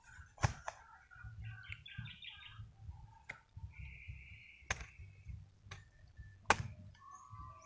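Machete chopping into a banana corm: about six sharp cutting strikes at uneven intervals, the loudest near the start and near the end. Birds chirp in between.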